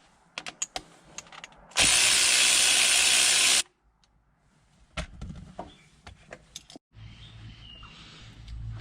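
Hand tools working on the 10 mm shifter bolts: scattered ratchet clicks, broken by a loud burst of a power tool about two seconds long that starts and stops abruptly.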